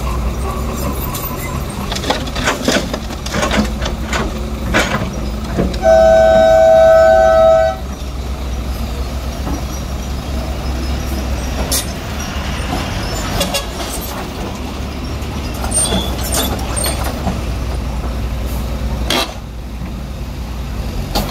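Diesel engines of a crawler excavator and a loaded dump truck running steadily, with clanks and knocks as the bucket drops soil into the truck's steel bed in the first few seconds. About six seconds in, a two-tone vehicle horn sounds once for about two seconds, the loudest sound here.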